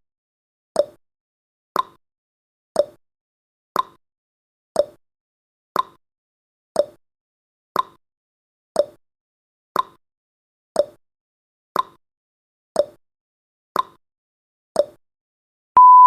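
Countdown timer's clock-tick sound effect, one sharp tick every second. Near the end a steady high beep starts as the countdown runs out.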